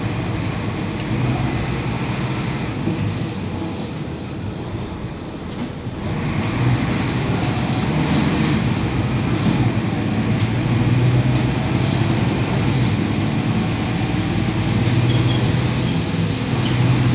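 Inside a moving Mercedes-Benz OC500LE bus: the engine runs steadily under road noise. About six seconds in, engine and road noise grow louder as the bus picks up speed. There are a few light rattles.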